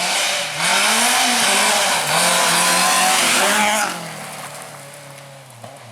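Rally car passing close under hard acceleration, its engine revving up, dropping briefly about two seconds in and rising again, over loud tyre and road noise; it fades away after about four seconds.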